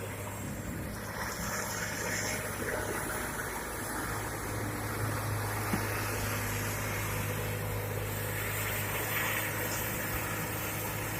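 Diesel engine of a Komatsu PC200 hydraulic excavator running steadily with a constant low drone, swelling louder twice as it works.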